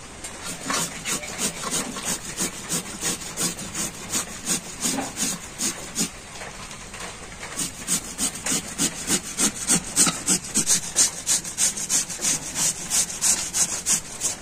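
Raw green papaya grated on a flat handheld steel grater: rhythmic rasping strokes, about three a second, growing louder about halfway through.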